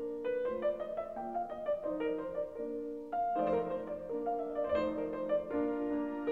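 Background piano music: a slow melody of single sustained notes over a soft accompaniment.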